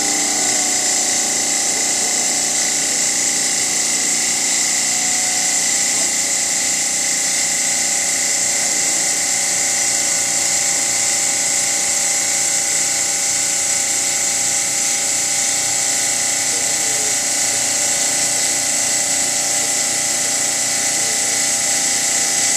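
Park Fusion bridge saw's Terminator Xtreme"S" diamond blade cutting a miter through stone under water spray: a steady high whine over the hiss of water.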